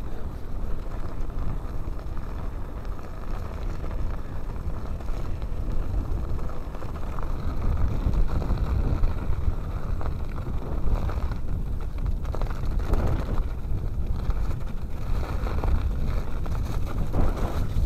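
Wind buffeting the microphone of a mountain bike's handlebar camera, over the rumble of tyres rolling on a snowy, rutted track. From about halfway, knocks and rattles from the bike on rough ground come more and more often.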